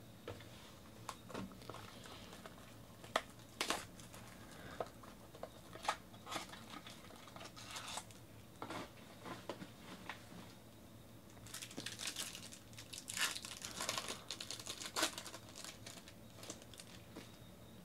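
Trading-card box shrink-wrap and foil pack wrapper being crinkled and torn open by hand: scattered crackles, thickening into a dense run of crinkling about twelve to fifteen seconds in.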